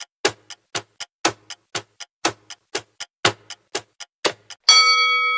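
Countdown timer sound effect ticking about four times a second, then near the end a bell-like chime strikes once and keeps ringing, slowly fading: the signal that the time is up.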